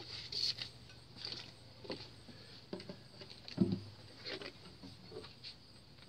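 Handling noise: scattered rustles and light knocks close to the microphone, with one louder thump a little past halfway.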